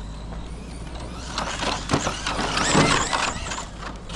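Traxxas Raptor R 4x4 electric RC truck running on a dirt track: a motor whine that rises and falls with the throttle over a noisy haze, with a knock about two seconds in.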